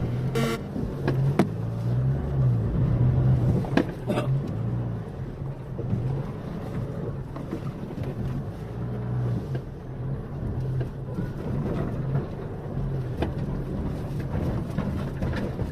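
A motor engine running steadily with a low drone, with a few sharp knocks and rattles over it; the tail of electronic music cuts off just at the start.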